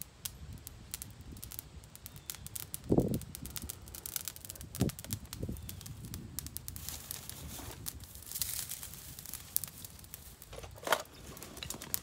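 Dry grass tinder bundle rustling and crackling as it is handled and lit, catching into flame, with a dull thump about three seconds in.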